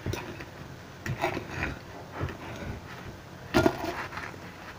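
Knife and fork handling on a plate while eating pancakes: a few short clinks and scrapes, the sharpest about three and a half seconds in.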